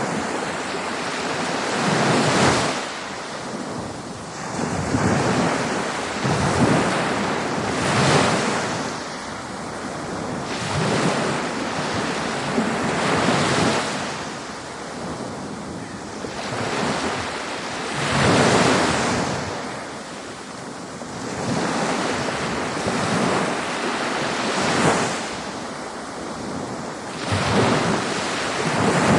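Ocean surf: waves breaking and washing in, rising and falling in repeated swells every two to three seconds.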